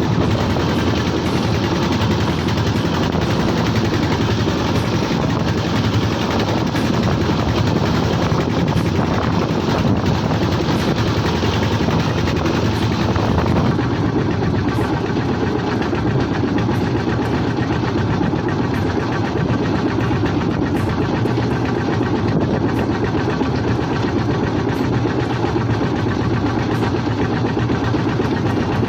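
A fishing boat's engine running steadily at close range, with a rapid, even beat.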